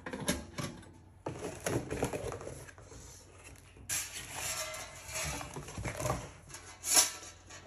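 Thin stainless steel oven drawer, trays and trivet clinking, rattling and scraping as they are handled, metal on metal, with a sharper clink near the end.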